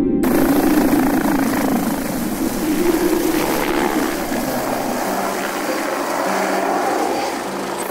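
Helicopter in flight: a steady, noisy rumble of engine and rotor that starts abruptly just after the start. Low sustained background music notes come in about halfway through.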